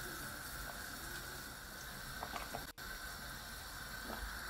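Pot of beef soup simmering on the stove: a steady, soft bubbling hiss, with a few faint knocks of a wooden spoon stirring in the potatoes.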